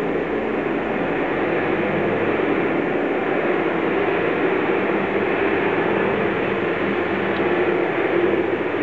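A loud, steady rushing noise with no distinct events.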